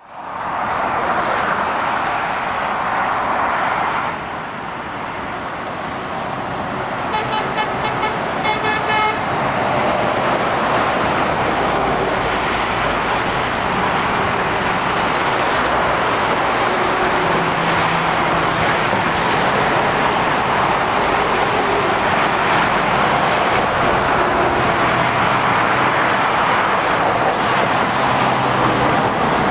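Steady roar of dual-carriageway traffic, the tyre and engine noise of cars and lorries passing. A vehicle horn sounds for about two seconds, about seven seconds in.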